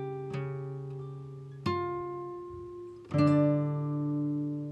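Background music: acoustic guitar playing a few plucked notes that ring out and fade, with a fuller chord strummed about three seconds in.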